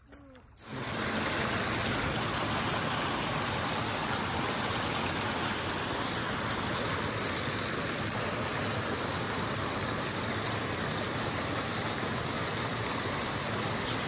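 Loud, steady rushing of white water pouring over a low drop in the river, starting abruptly about a second in.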